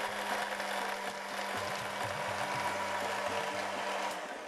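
Countertop electric blender running steadily, blending avocado with water and ice into a smoothie; it cuts off shortly before the end.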